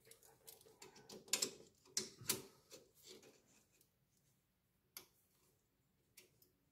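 Clicks and light knocks of hands working a small clamp against the lathe's metal bed. They come close together for about three seconds, then thin out to two or three single clicks.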